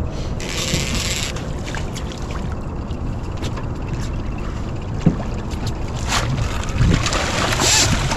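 Steady low rumble aboard a fishing boat on the river. There is a brief hissing rush about half a second in and another near the end.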